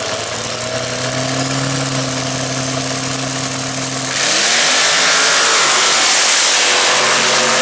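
Truck engines revving hard under load, a diesel pickup and a lifted mud truck. The engine note holds steady at first, then about four seconds in the revs climb and it gets louder, with a rush of tires spinning in dirt.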